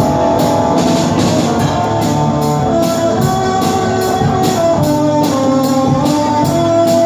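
Live band playing an instrumental passage: electric guitars over a drum kit keeping a steady, even beat.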